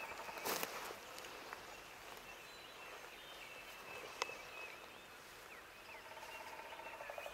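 Faint wild birds chirping in short, scattered calls, with a brief rustle near the start and a single sharp click about four seconds in; a faint rapid trill starts near the end.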